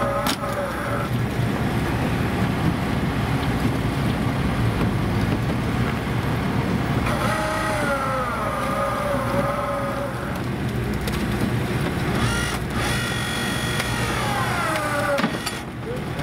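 Diesel engines of excavators and a heavy recovery truck running steadily under load while the sunken excavator is hoisted out of the ice. A whine twice slides down in pitch and wavers over a few seconds.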